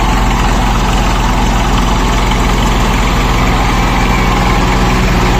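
Three-cylinder diesel tractor engines of a Swaraj 855 FE and a John Deere 5310 running at a steady speed, a low, even pulsing note with no revving.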